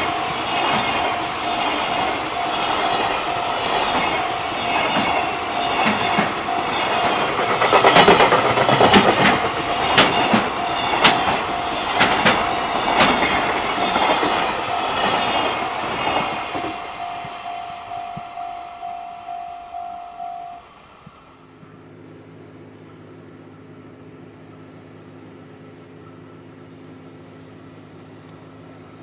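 Long container freight train of Koki flatcars passing close by, its wheels clacking rhythmically over rail joints, with a steady ringing tone running alongside. The noise fades after about two-thirds of the way through and cuts off abruptly, leaving a steady low hum.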